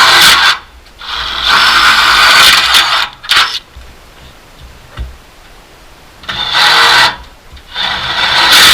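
Power drill with a large metal bit boring a hole through an aluminum screen door frame, run in four bursts of a second or two each with short pauses between.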